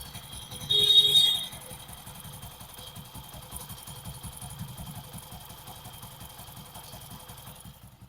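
Hero Passion Pro single-cylinder engine idling with a steady high-pitched whirring (a 'sansanahat' sound) that comes from a hardened timing-chain roller guide, not from the chain itself. A brief louder sound comes about a second in, and the whine fades just before the end.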